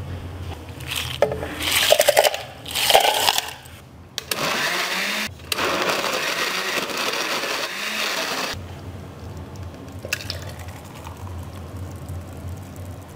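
Countertop Osterizer blender running on a load of mango, yogurt and crushed ice: a short spell about four seconds in, a brief break, then about three more seconds of steady running that cuts off suddenly. Before it, two loud rattling bursts.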